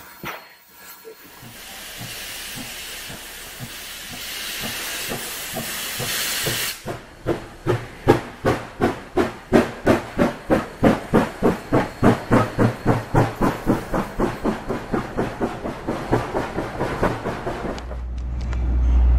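Steam locomotive NYSW 142, a Chinese-built SY-class 2-8-2, releasing steam with a steady hiss for several seconds, then working its train away with sharp, even exhaust chuffs at about three to four a second. A low rumble takes over near the end.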